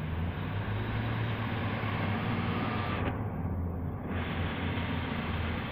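Class 150 Sprinter diesel multiple unit approaching slowly along the platform. Its diesel engines give a steady low hum under a broad rushing noise.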